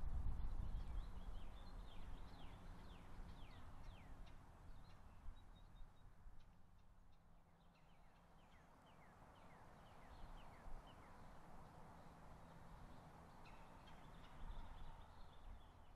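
Birds chirping in the open air: many quick, high calls that fall in pitch, coming in clusters with a brief lull in the middle. A low rumble sits under them, strongest in the first couple of seconds.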